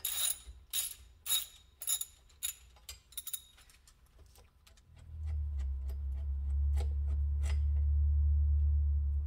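Ratchet wrench clicking in short, even strokes, about two clicks a second, as the E10 Torx bolts of the factory turbo's oil drain line are undone; the clicks thin out after about three seconds. From about five seconds in, a steady low hum takes over and is the loudest sound.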